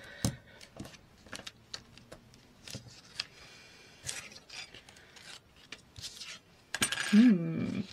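Card stock and foam sheets handled and slid on a cutting mat: scattered light taps and rustles. Near the end comes a louder, longer rasp of washi tape being pulled off its roll.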